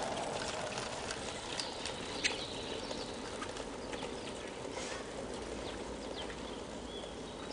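Mountain bikes riding away over cobbles: a rattling noise that fades in the first second, with scattered sharp clicks and ticks. Birds chirp now and then.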